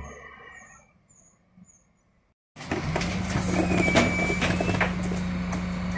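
A refuse truck pulling away, its engine fading out. After a short gap, the rear of a DAF CF refuse truck with a Heil Powerlink body at work: a steady hum from the engine and hydraulics while a wheelie bin is lifted and tipped on the Terberg bin lifter, with clanks of the bin and lifter and a brief squeal.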